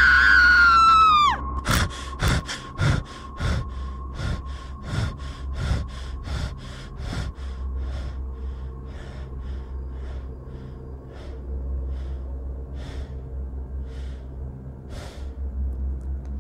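A girl's scream, falling in pitch and cutting off about a second in, followed by a long run of quick, rhythmic gasping breaths, about three a second, that slow and fade, over a low steady hum.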